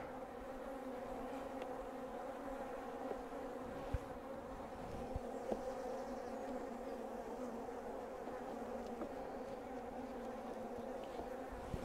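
Honey bees of a strong colony humming steadily around an opened hive, with a few light knocks as the wooden frames are handled about four and five seconds in.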